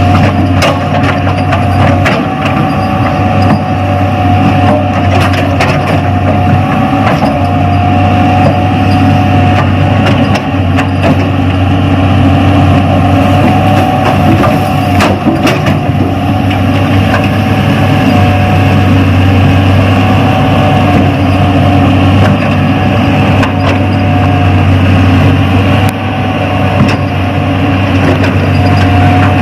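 Excavator diesel engine sound running steadily at a constant pitch, with light clicks scattered through it.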